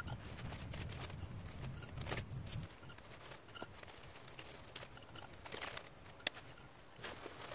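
Scrap copper wire and pieces being handled in a plastic tub and dropped into a clay-graphite crucible: faint, scattered light clicks and rustles.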